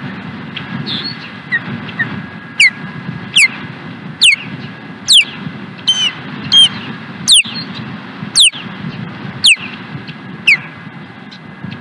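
Osprey calling from the nest: a run of about ten loud, sharp whistles, each sliding steeply down in pitch, roughly one a second, with two shorter, lower calls in the middle.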